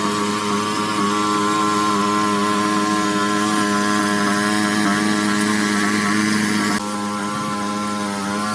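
A motor running steadily with an even, pitched hum. Its level dips slightly about seven seconds in.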